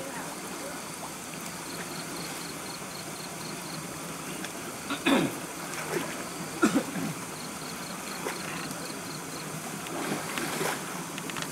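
Steady sloshing of pond water as men wade and drag a seine net through it, with a few sharper splashes about five seconds in, again just before seven seconds, and near the end.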